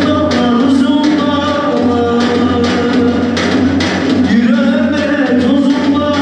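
Loud music with singing over a steady drum beat.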